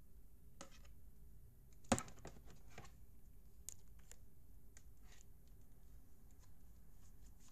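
Faint scattered clicks and taps from hands working a plastic spinning dragon toy, with one sharper knock about two seconds in.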